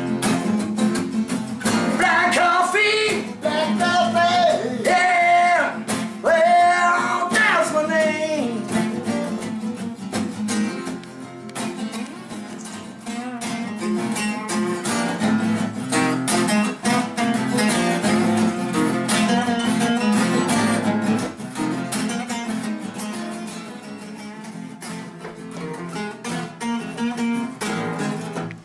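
Two acoustic guitars playing a song together, with a pitched melodic line over the strumming that is strongest in the first several seconds.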